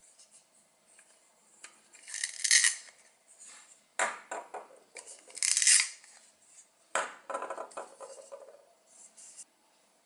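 Velcro tearing as the two plastic halves of a toy lettuce are pulled apart, in short rasping rips, the two loudest about three seconds apart. Hard plastic pieces clack and rub as they are handled between the rips.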